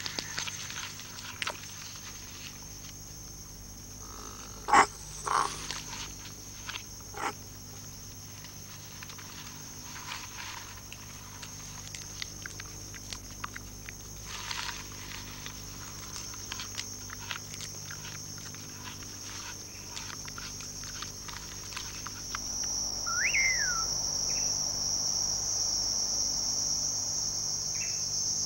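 Night insect chorus: a steady high-pitched chirring, with scattered faint clicks and a few short, sharp noises about five and seven seconds in. Past the middle the chorus grows louder, and a short call that sweeps up and down sounds twice.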